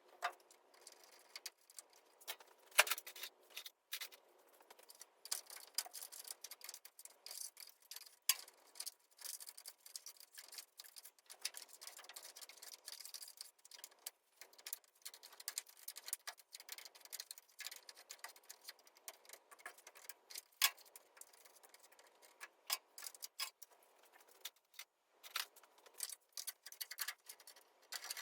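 Irregular clicks, ticks and light rattles of hand tools and small dash parts being worked loose from an early Ford Bronco's dashboard, with a few sharper clicks among them.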